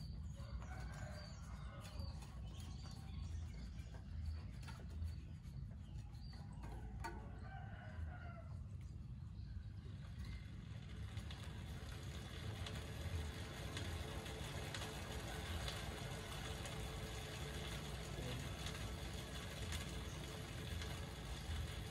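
A rooster crowing twice, each crow about two seconds long, once near the start and again about seven seconds in, over a steady low rumble. From about ten seconds in, a steady hiss with light ticks takes over.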